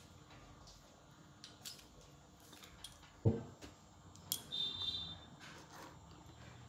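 Quiet handling sounds of an egg, a pin and a sparkler stick over a wooden table: scattered light clicks and taps, a thump about three seconds in, a sharp click a second later and then a brief high-pitched tone.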